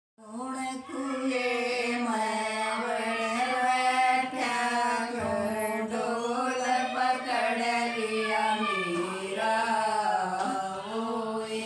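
Women singing together unaccompanied, in long held, chant-like notes that waver slowly in pitch.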